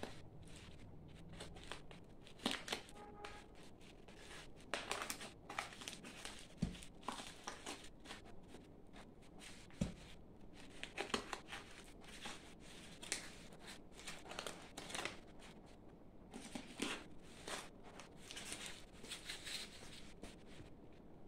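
Scissors snipping through brown packing tape and plastic wrap on a tube-shaped parcel, with irregular crinkling and tearing of the wrapping.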